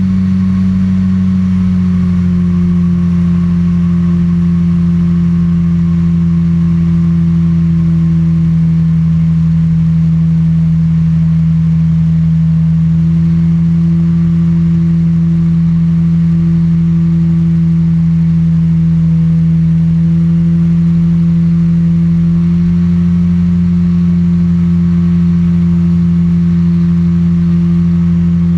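Microlight trike's engine and pusher propeller droning steadily in flight. The pitch dips slightly about two seconds in and creeps back up a little later.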